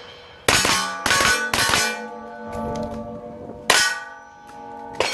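Five shots from a 9mm carbine, three in quick succession about half a second apart, then two more spaced out, each followed by the ringing of a struck steel target plate.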